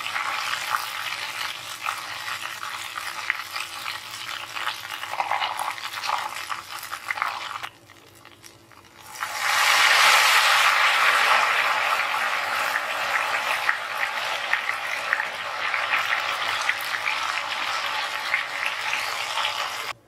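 Ghevar batter sizzling in a pot of hot oil. It goes quiet for a moment about eight seconds in, then a fresh stream of batter poured into the centre sets off much louder frothing sizzle that slowly settles.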